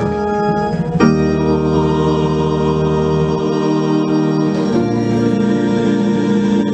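Organ and a small choir sing a hymn's closing "Amen" in long held chords. The chord changes about a second in and again near five seconds.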